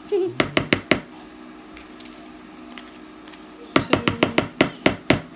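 Metal spoon knocking Crisco shortening out of a measuring spoon into a plastic mixing bowl: a few quick taps at the start, then a fast run of about a dozen taps in the second half. A food dehydrator hums steadily underneath.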